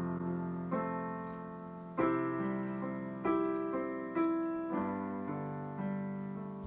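Piano playing slow sustained chords, each struck and left to ring and fade before the next, as an instrumental close to the worship song.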